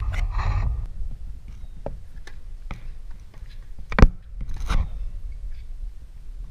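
Tennis ball bounced three times on a hard court, then a sharp racket strike on the ball about four seconds in, followed by a second hit soon after. A steady low rumble runs underneath.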